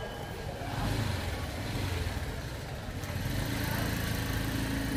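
A motorbike engine running nearby, a low rumble that swells about three seconds in.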